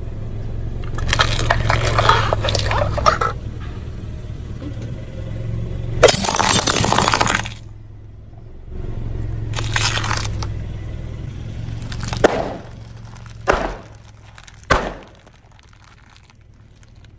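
A car tyre crushing a series of brittle objects: stretches of crunching and crackling, the loudest a sudden shattering break about six seconds in, then a few single sharp snaps. A car engine idles low underneath in places.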